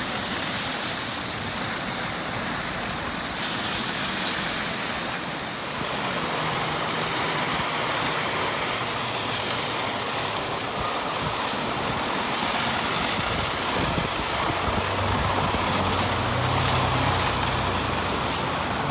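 Water jetting from a sheared fire hydrant in a tall column: a steady rushing spray of water under full main pressure.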